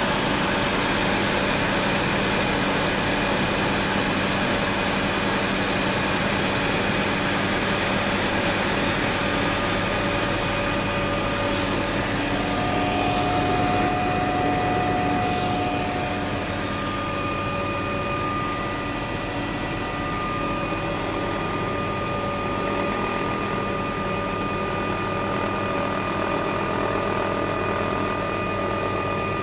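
Steady engine and airflow noise inside a small aircraft's cabin in flight, a continuous drone with several steady tones and no change in power.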